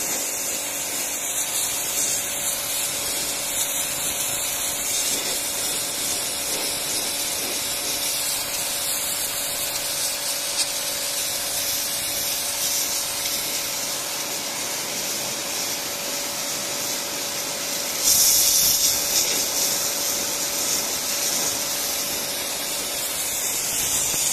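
Pressure washer's high-pressure jet hissing steadily against stone paving tiles, over the steady hum of its motor and pump. The spray grows louder about eighteen seconds in.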